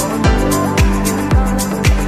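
Background music with a steady beat: an electronic track with a deep kick drum about twice a second over sustained chords and bass.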